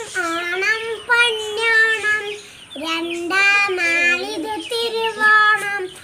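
A young girl singing an Onam song in Malayalam, unaccompanied, in held melodic phrases with a short breath pause partway through.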